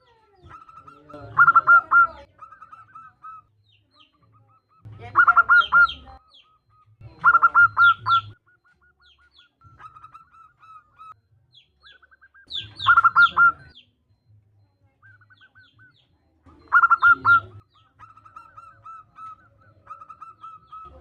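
Zebra dove cooing: a quick cluster of rapid staccato coos comes every few seconds, six times, with softer, evenly spaced single coos between the clusters.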